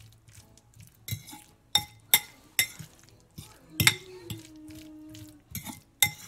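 Metal fork mashing and mixing guacamole in a white ceramic bowl, with irregular sharp clinks of the fork against the bowl, about eight of them.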